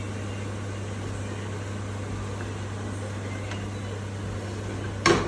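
Steady hum of a kitchen exhaust fan, with one sharp knock near the end.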